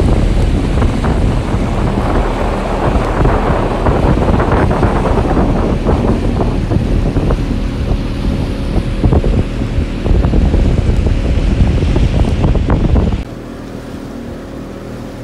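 A Ryds Hajen boat's 60 hp outboard motor running under way, with wind buffeting the microphone and water rushing against the hull. About thirteen seconds in, the wind and water noise drops suddenly, leaving a quieter, steady engine hum.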